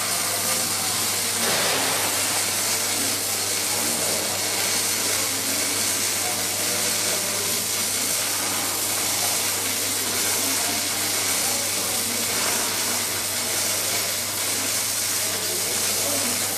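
Robotic arc welding: a steady hiss, with a low electrical hum underneath.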